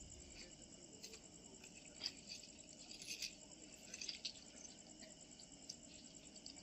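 Faint night-time outdoor ambience: insects chirping steadily, with a few scattered faint ticks.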